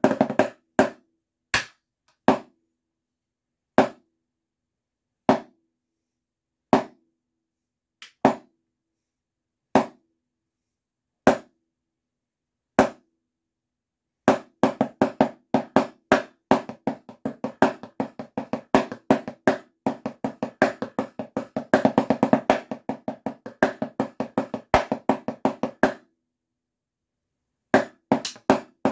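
Wooden drumsticks striking a snare practice pad in a drumline snare part. A quick cluster of strokes comes first, then single strokes about every second and a half. From about halfway through come fast accented sixteenth-note patterns, which break off briefly near the end and then start again.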